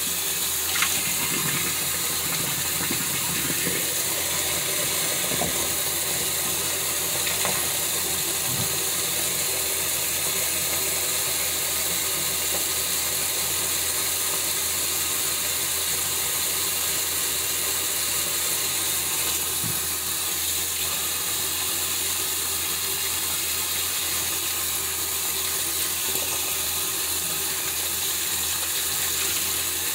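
Bathroom sink tap running steadily into the basin during face washing with a washcloth, with a few faint knocks in the first nine seconds or so.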